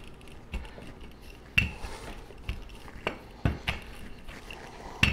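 Handled wooden rolling pin rolling out pie dough on a tile countertop: a faint rolling rumble broken by a handful of sharp wooden knocks and clacks as the pin and its handles strike the tile.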